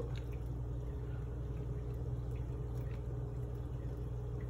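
Warm sparge water poured slowly in a thin stream from a glass measuring jug onto a bed of crushed malt in a strainer, a soft trickle rinsing the sugars from the grain. A steady low hum runs underneath.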